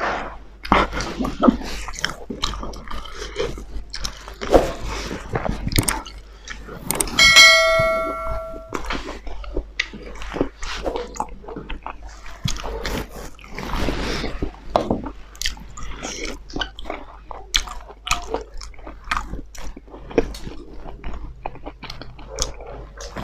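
Close-up eating sounds: chewing, lip smacks and fingers working rice and curry on steel plates. About seven seconds in, a steel dish is knocked and rings with a clear metallic tone for about a second and a half, the loudest sound here.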